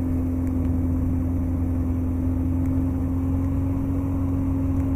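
Just Aircraft Highlander's engine and propeller running steadily at low power on the ground: an even drone with a constant low hum and a steady tone above it. The gauge checks read good: oil pressure, cylinder temperature and fuel pressure.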